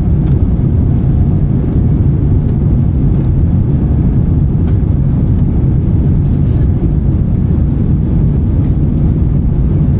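Steady low rumble of engine and airflow noise inside the cabin of an Airbus A350-900 with Rolls-Royce Trent XWB engines, climbing after takeoff.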